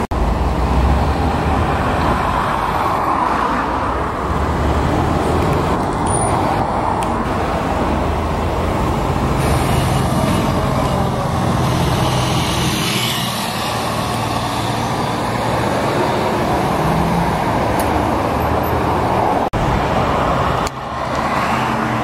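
City buses and car traffic driving past on a busy road, with engine hum and tyre noise. The sound cuts abruptly twice near the end, where short clips are joined.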